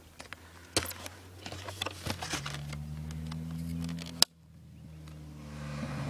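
Rustling and clicking handling noise, then the steady engine hum of an approaching vehicle, growing louder. A sharp click about four seconds in cuts it off abruptly. The hum then returns and rises again as the vehicle nears.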